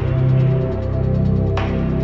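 Live concert music heard from the stadium crowd: sustained low tones, with a sharp noisy hit about one and a half seconds in that rings on.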